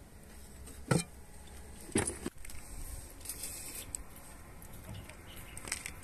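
Two sharp knocks about a second apart, the second with a short rattle, as a clay cooking pot of raw meat is handled.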